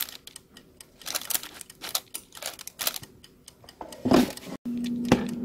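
Light clicks and taps as an air fryer's basket is handled, then a clunk about four seconds in as the basket slides back into the fryer. After that the fryer's fan starts with a steady hum.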